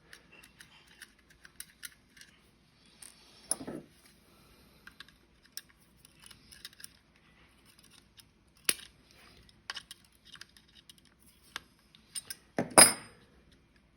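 Scattered light clicks, taps and rattles of the plastic doorbell camera housing and its small screws being handled and set down, with a few sharper knocks and the loudest clack near the end.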